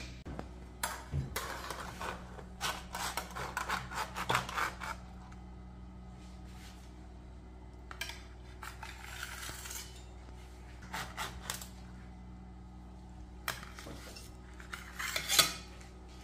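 A utensil scraping and clinking on an oval stainless steel serving platter as baked fish fillets are lifted and set in place, in several short clusters of scrapes and knocks over a steady low hum.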